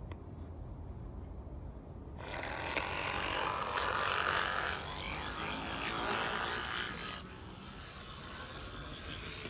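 HO-scale brass model streetcar running on the layout track: a low steady rumble from its motor and wheels. A louder rushing, clattering noise comes in about two seconds in and fades back at about seven seconds.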